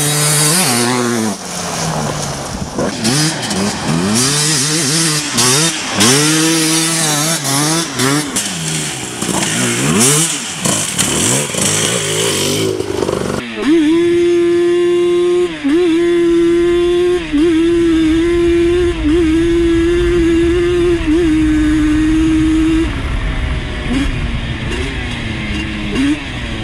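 Two-stroke ATV engine revving up and down over and over with rapid throttle changes. About halfway in, a sudden change to a quad holding a steady high-pitched rev for several seconds with brief dips, which falls away and climbs again near the end.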